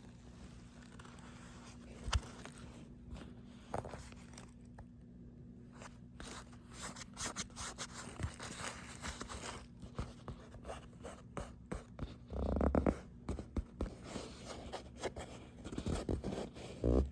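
Hands handling and rubbing a stiff, old leather jacket: scattered short scrapes and crinkles of the leather, busiest in the second half, with a dull bump about two-thirds of the way through and a faint steady low hum underneath.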